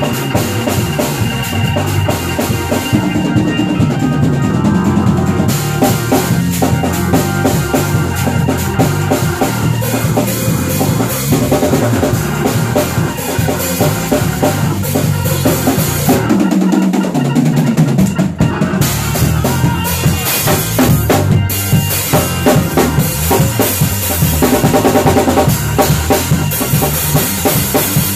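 Live band playing loudly: a drum kit with busy bass drum and snare hits over bass guitar and keys. Brief drop in the low end about 17 seconds in, then the full band carries on.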